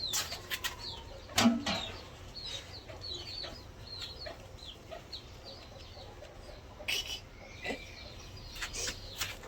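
Chickens clucking, with many short high chirps over several seconds, among a few sharp knocks.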